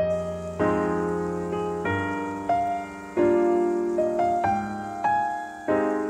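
Background piano music: gentle notes and chords, each struck and slowly fading, a new one about every second.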